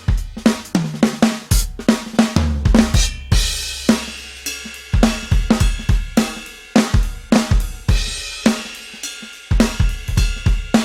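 Drum kit playing a groove of kick drum, snare, hi-hat and cymbal hits. A long, low bass note sounds under the kicks in places.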